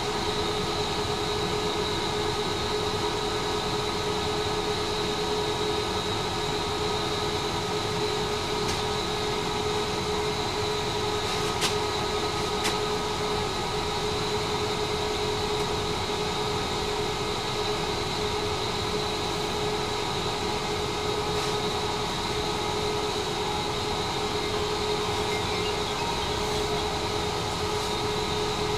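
Tram heard from on board: steady running noise with a constant whine. Two sharp clicks come about twelve seconds in.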